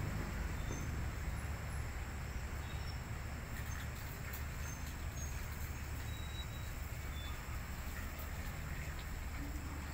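Outdoor night ambience during a thunderstorm: a steady low rumble with faint, high insect chirping over it.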